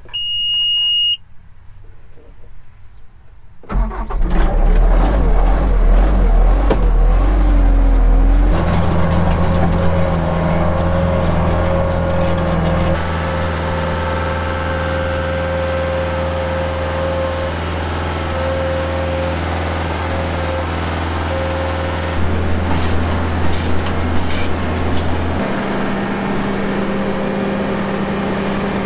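A short electronic beep from the Bobcat skid-steer's control panel, then its diesel engine cranks and starts about four seconds in. It runs steadily, with the engine speed stepping up a few seconds after starting and changing again later.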